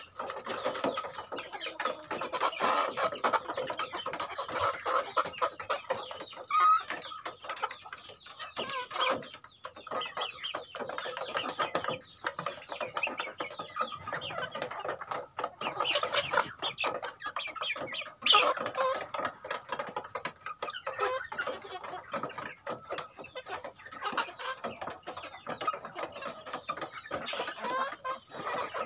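A flock of native chickens clucking steadily while feeding, over a dense patter of beaks pecking at feed in a tray. A couple of louder calls stand out in the second half.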